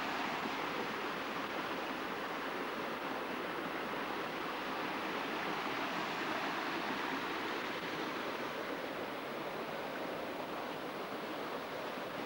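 Creek water rushing steadily down a small rocky cascade, an even hiss of white water without a break.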